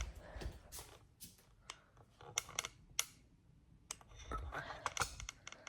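Faint, scattered light clicks and taps of things being handled, about a dozen short separate ticks with a small cluster near the end.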